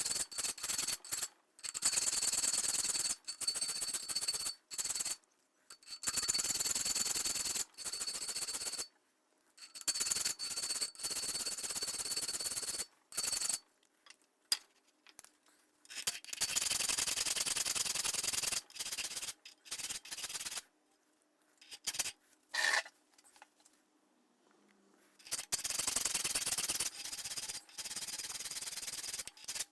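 Hand file rasping along the steel spine of a cleaver forged from a mower blade, in a run of strokes of uneven length with short pauses between them and one longer pause a little past the middle.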